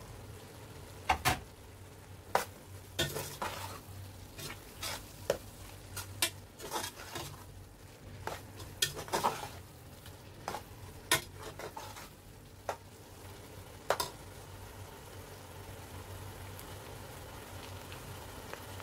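A metal spoon scraping and clinking against the plate and the metal pot while stirring minced beef, tomato paste and spices that sizzle in the pot. The clinks stop for the last few seconds, leaving a steady sizzle.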